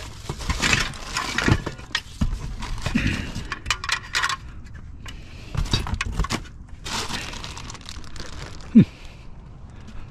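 Rummaging through a pile of scrap: cables, small hardware and metal pieces clinking, knocking, rattling and scraping as they are handled and shifted. A short falling squeak about nine seconds in is the loudest sound.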